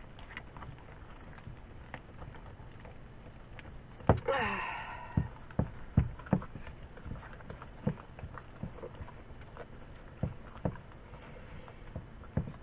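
Hands mixing and squeezing thick cake dough in a bowl, with irregular sharp knocks of hands and rings against the bowl. About four seconds in, the loudest knock is followed by a short vocal sound that falls in pitch.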